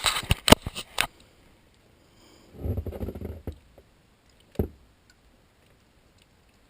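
A quick run of sharp knocks and clicks, then a low rumbling handling noise about two and a half seconds in, and one more knock a second later.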